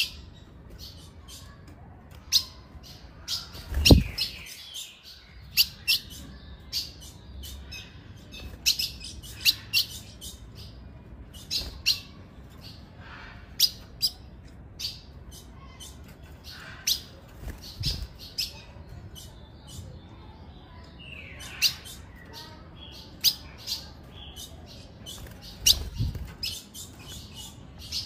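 Female ultramarine grosbeak (azulão) calling with short, sharp, high chirps repeated at irregular intervals, the call used to excite male azulões. A few low thumps break in, the loudest about four seconds in and two more later.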